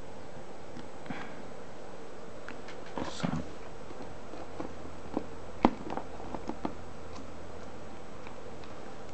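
A sniff about three seconds in and several handling clicks, the sharpest a little past halfway, over a steady faint electrical hum.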